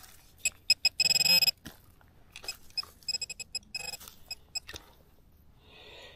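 Metal-detecting pinpointer beeping as it is worked through a clump of dug soil. A few quick beeps run into a steady tone about a second in, then a second run of rapid beeps follows, the sign that the pinpointer has found metal in the dirt. Soft rustling and crumbling of soil comes between the beeps.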